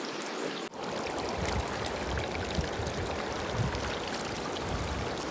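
Steady rush of a fast-flowing river. Just under a second in the sound drops out for an instant and resumes with a deeper rumble underneath.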